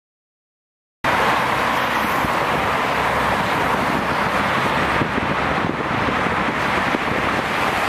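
Steady traffic noise from cars passing on a multi-lane city road, starting abruptly about a second in after silence.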